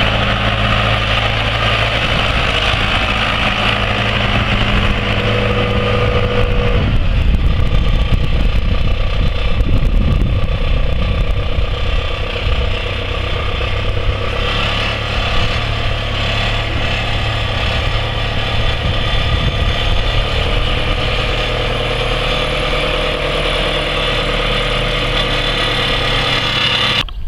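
A John Deere 6400 tractor's four-cylinder diesel engine running steadily as the tractor drives. The engine note changes about seven seconds in, and the sound cuts off abruptly near the end.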